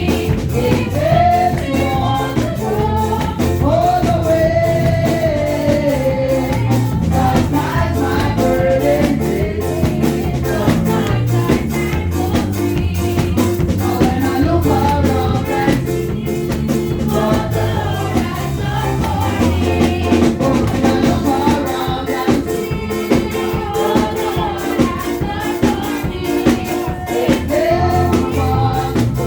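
Gospel song sung in church with live band accompaniment: sung melody over a steady bass line and a regular percussion beat.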